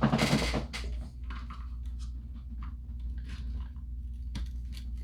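Light clicks and taps of small plastic and metal RC axle parts being handled and seated into the axle housing, over a steady low hum. There is a short, louder burst at the very start.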